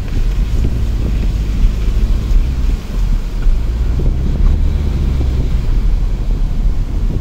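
Inside a Ford car driving on beach sand: a steady low rumble of engine and tyres, with wind buffeting the microphone in irregular gusts.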